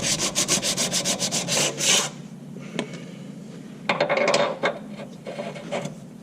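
Sandpaper rubbed by hand over the metal of a car's suspension mounting point in fast back-and-forth strokes, about seven a second, cleaning it up so new collars slide on smoothly. The sanding stops about two seconds in; a few short scrapes and a knock follow around four seconds in.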